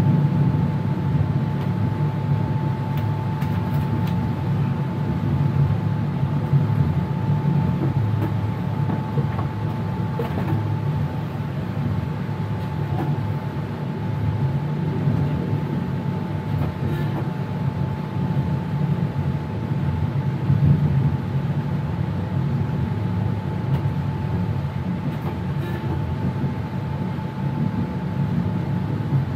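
Passenger train running at speed, heard from inside the driver's cab: a steady low rumble from the wheels and running gear, with a constant high-pitched hum over it.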